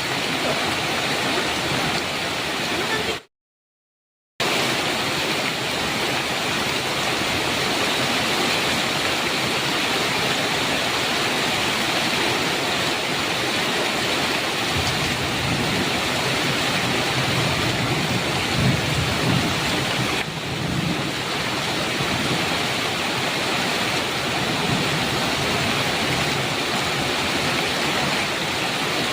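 Heavy rain pouring steadily on a metal roof, with a low rumble of thunder swelling about halfway through. The sound cuts out completely for about a second a few seconds in, then resumes.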